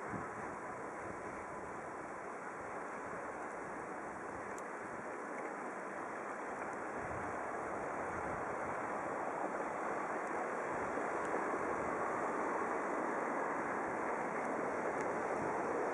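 Road traffic on snow-covered streets: a steady rushing noise of car tyres on snow, swelling gradually over the second half as cars draw nearer.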